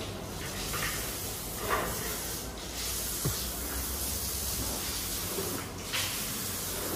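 Water hose spraying onto the floor, a steady hiss, with a few brief knocks.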